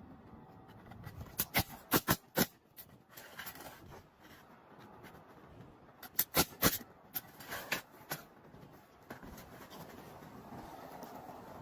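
Sharp knocks in two quick runs of three or four, about a second in and again about six seconds in: asphalt shingles being nailed down on a roof deck.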